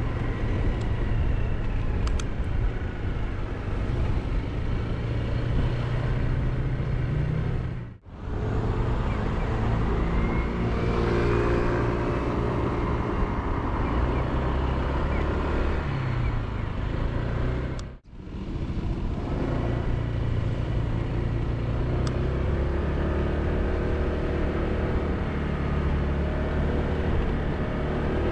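Honda PCX scooter's single-cylinder four-stroke engine running under way, its note rising and falling with speed, mixed with wind and road noise. The sound dips out briefly twice at edit cuts.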